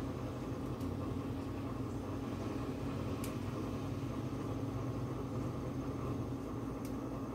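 A kitchen appliance motor running with a steady low hum, with a few faint ticks.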